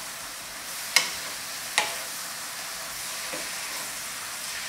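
Oyster mushrooms sizzling in a hot oiled nonstick pan over high heat as a wooden spatula stirs them: a steady frying hiss, with two sharp knocks of the spatula against the pan about one and two seconds in.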